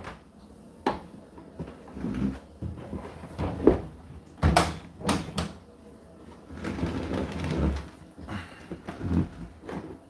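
Condenser tumble dryer door being swung shut and latched, with a sharp click about halfway through, among several knocks and bumps from handling the cabinet.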